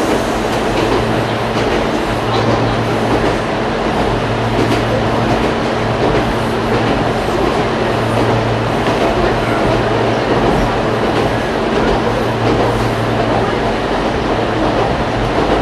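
Ichibata Electric Railway 5000 series electric train running at speed, heard inside the carriage: a steady rumble of wheels on rails under a low hum, with a few faint clicks.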